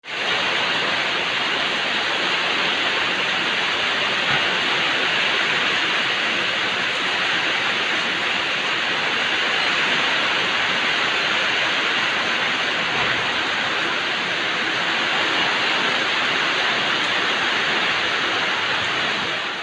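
Heavy rain falling in a steady downpour, a dense, even hiss of water.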